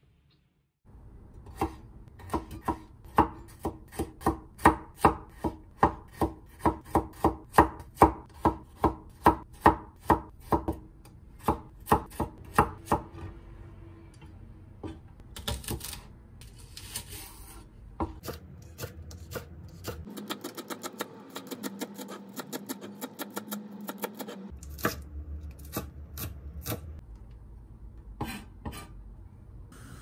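Knife chopping food on a cutting board in a steady run of strokes, about two to three a second. About halfway through it gives way to lighter, scattered taps.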